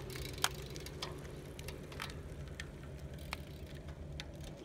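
Road cyclists pushing off and pulling away: two sharp clicks at the start, cleats snapping into clipless pedals, then scattered lighter ticks over a low steady hum.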